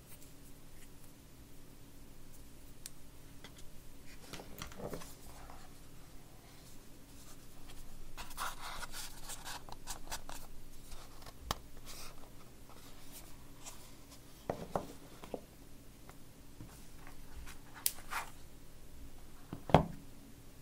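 Hands handling a new phone's packaging and accessories: soft rustling and scraping with scattered small clicks. There is a denser patch of rustling about eight to eleven seconds in, and a sharp click near the end.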